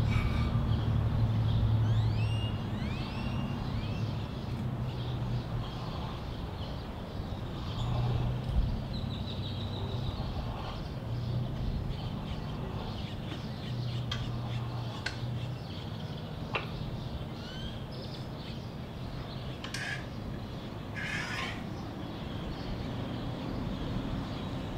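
Outdoor birds calling and chirping, with a run of short rising whistled calls about two to three seconds in and scattered calls later, over a low hum that comes and goes.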